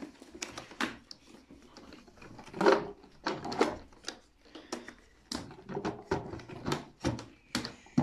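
Plastic clicks and knocks from the latches and housing of an Arnica Hydra Rain Plus water-filter vacuum as its motor head is unclipped and lifted off the water tank. The clicks come irregularly, with the loudest knock about two and a half seconds in.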